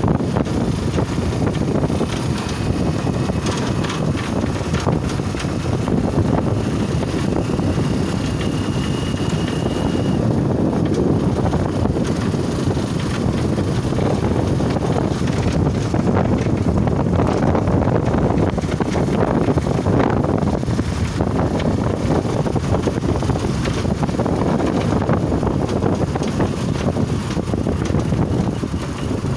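Steady wind rushing over the microphone while riding a motorcycle with a sidecar, mixed with the bike's running engine and tyre noise on the road.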